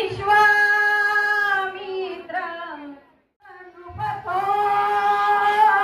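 A high singing voice, a woman or a child, holding long sustained notes that dip in pitch at the end of each phrase, with a short break about three seconds in.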